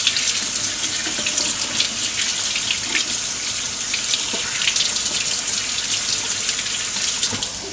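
Kitchen tap running steadily, its stream splashing over a small circuit board held in the hands and down into the sink.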